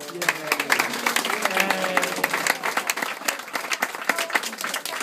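Audience applauding, many hands clapping at once, with a few voices over it.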